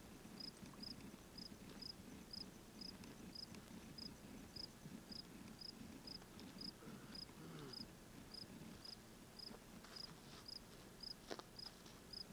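A cricket chirping faintly and evenly, about three to four short high chirps a second.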